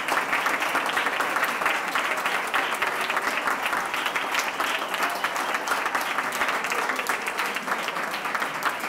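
Audience applauding: dense, steady clapping from many hands, easing slightly near the end.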